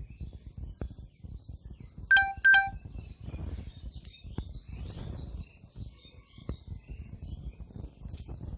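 Pigeons feeding with a busy low patter of wings and pecking, while small birds chirp high above. About two seconds in come two short, loud electronic beeps in quick succession, the loudest sound.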